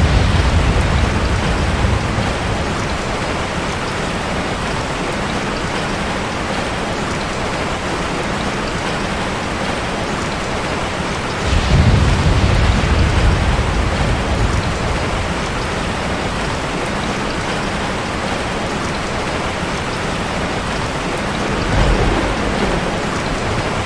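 Steady rain with low rolls of thunder: one fading out at the start, a longer one about halfway through lasting a few seconds, and a shorter one near the end.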